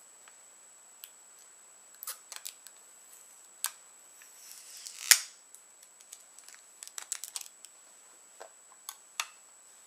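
Clicks and crackles of the Apple Magic Mouse's box being opened, with a short rustle that ends in one loud sharp snap about five seconds in.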